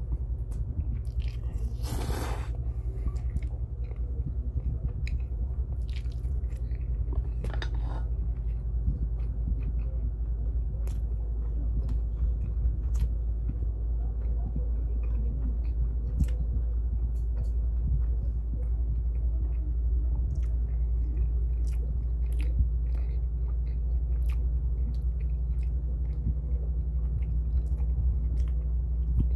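A person eating Paldo Bibimmen cold spicy noodles close to the microphone: two slurps of noodles in the first several seconds, then steady wet chewing with frequent small mouth clicks. A steady low hum runs underneath.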